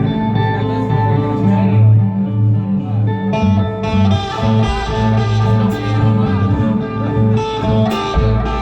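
Live instrumental rock band playing, led by sustained electric guitar over low bass notes. The sound grows fuller about three seconds in.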